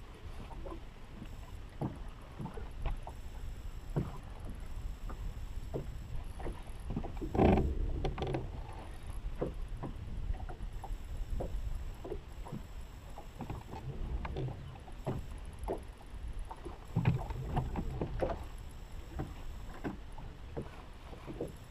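Water slapping and knocking irregularly against a fishing boat's hull over a low rumble, with louder knocks about seven and a half seconds in and again about seventeen seconds in.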